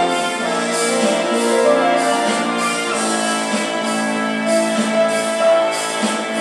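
Background workout music with a steady beat and sustained instrumental notes.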